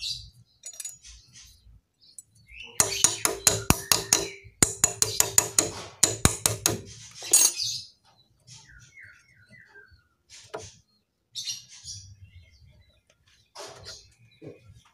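Metal clinking: a quick run of sharp clinks with a ringing note for about four seconds, starting roughly three seconds in. Small birds chirp now and then in the background.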